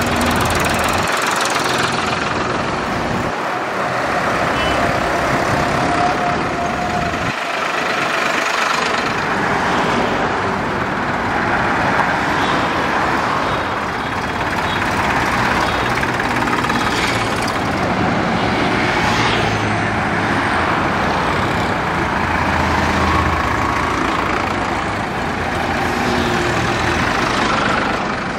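Several diesel farm tractor engines running steadily as a slow convoy of tractors drives along a highway, with road noise from tyres and passing traffic.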